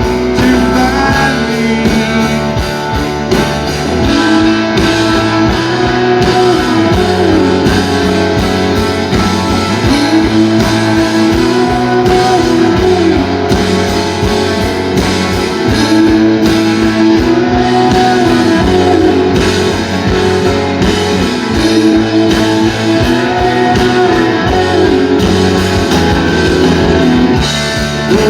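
Rock band playing live, loud and close: strummed guitars and a drum kit under a sung lead vocal with long held notes.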